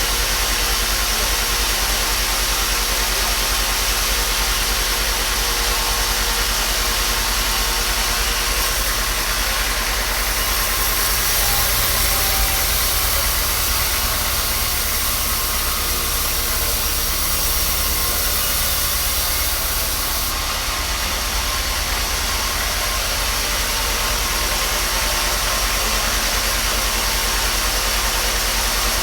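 A motor-driven machine running steadily, with a louder high hiss for about ten seconds in the middle.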